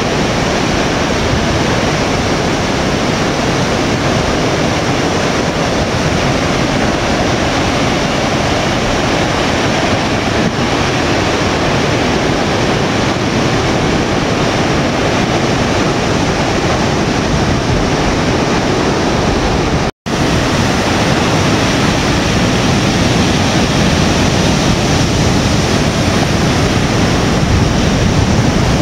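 Ocean surf breaking on a rocky shore: a loud, steady rush of waves and churning water. It cuts out for an instant about two-thirds of the way through.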